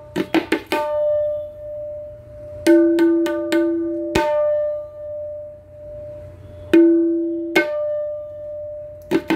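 Handmade 5.5-inch tabla (dayan) struck with the fingers in a few short groups of strokes, its head ringing with a clear, steady pitch between them. Twice a lower, fuller note rings out for about a second. This is the maker's sound test of a newly made drum.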